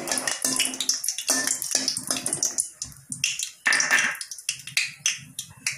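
Dried red chillies sizzling and crackling in hot oil in a steel wok, in irregular bursts, with a steel ladle stirring and clinking against the pan early on.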